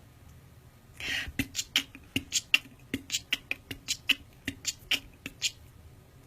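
A person beatboxing: a short hissed burst, then a quick rhythm of mouth clicks and pops, about five a second, with low kick-like thumps under some of them, for about four seconds.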